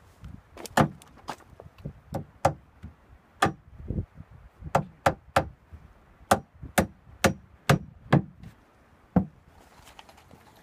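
Claw hammer driving nails into the wooden boards of an outhouse seat: about twenty sharp blows in uneven runs, some in quick pairs, stopping a little before the end.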